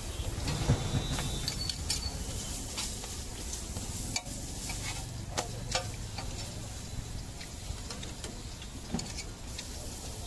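Parathas frying in ghee on a large flat tawa: a steady sizzle, with the long metal spatula clicking and scraping against the griddle several times, over a low steady rumble.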